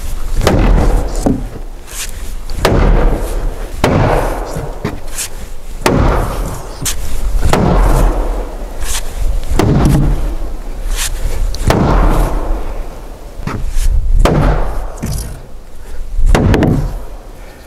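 Large wooden mallet striking a timber beam of a hanok frame in repeated blows, about one every second or so, each a sharp knock with a short tail.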